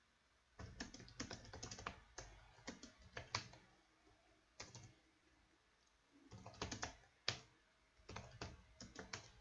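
Computer keyboard typing: several short bursts of keystrokes separated by pauses of about a second.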